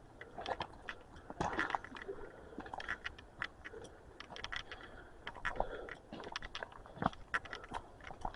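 Irregular crunching, scraping and sharp clicks close to the microphone, scattered without a steady rhythm.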